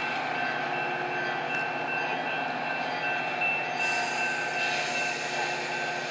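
Metra bilevel commuter train standing at the platform, its engine and onboard equipment running: a steady drone with a thin, high, steady whine over it.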